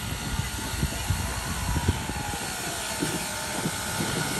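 Steam locomotive rolling slowly, with irregular low thumps and clanks from its running gear over a steady hiss.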